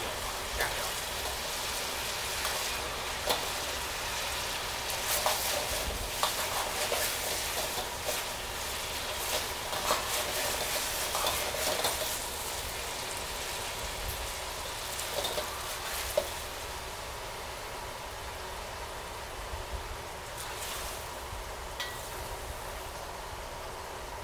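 Red-braised pork belly and its thick sauce sizzling and bubbling in a hot wok as the sauce is reduced, with occasional clinks and scrapes of a metal ladle against the wok. The sizzle settles a little lower in the last third.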